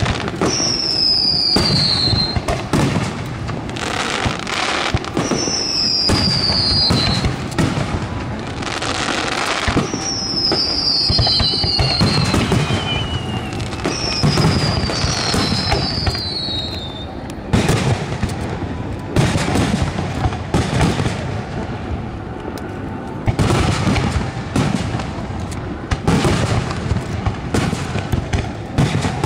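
Aerial firework shells bursting one after another: booms and crackling. In the first half, about five high whistles fall in pitch among the bursts.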